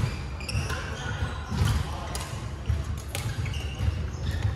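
Badminton play on a wooden sports-hall floor: several sharp racket hits on the shuttlecock, court shoes squeaking, and feet thudding on the floor.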